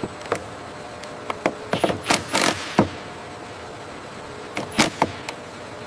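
Cordless drill run in short bursts at an aircraft wing panel: a quick series of brief whirs and clicks in two clusters, over a steady hangar hum.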